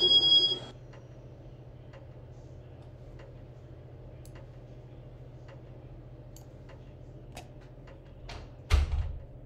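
Casablanca Victorian ceiling fan's XLP motor running on speed 4, a steady low hum with faint scattered ticks. A short two-tone beep sounds at the very start, and a single thump comes near the end.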